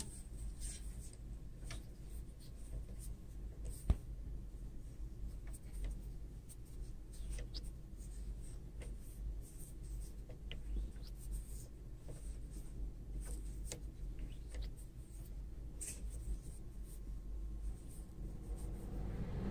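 Faint steady low hum with scattered light scratching and ticking sounds, and one sharper click about four seconds in.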